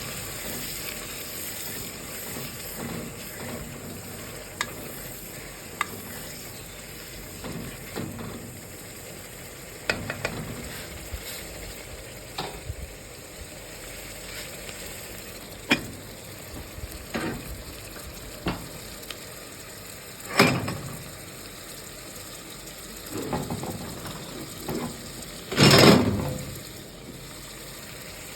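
Food sizzling in a frying pan while it is stirred, with scattered clicks and scrapes of a utensil against the pan and two louder clatters, one about two-thirds through and one near the end.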